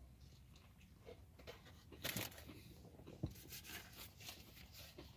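Faint eating sounds: a bite into a burger topped with onion rings, then chewing. There is a brief crackle about two seconds in and a sharp click a second later.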